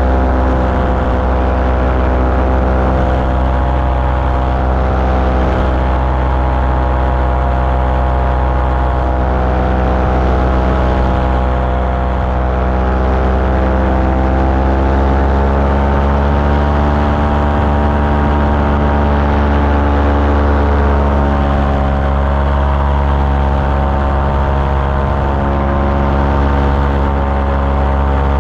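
Small aircraft engine and propeller running steadily in flight, its pitch rising gradually about halfway through as power comes up, then holding.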